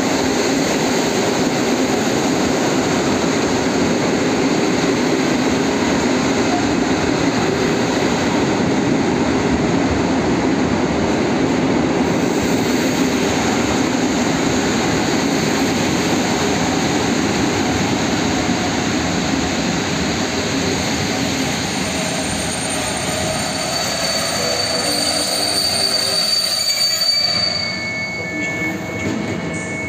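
PKP Intercity passenger coaches rolling past along the platform, the wheels rumbling steadily on the rails. From about two-thirds of the way in, the train squeals in several high steady tones as it brakes, and the rumble fades as it comes to a stop near the end.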